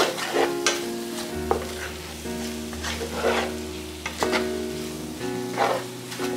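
Wooden spatula stirring and scraping diced apples as they fry in butter in a nonstick frying pan, with a sizzle under irregular strokes about once a second.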